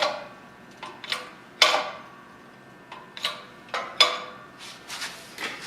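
A high-speed steel keyway broach being forced down through a steel gear blank, giving irregular sharp metallic clicks with a short ring, two of them louder than the rest. This is the broach cutting, with nothing breaking.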